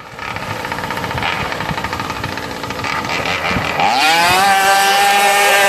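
Small grass-trimmer engine driving a radio-controlled longtail boat, running roughly at part throttle, then revving up about four seconds in and holding a steady high-pitched whine at high revs.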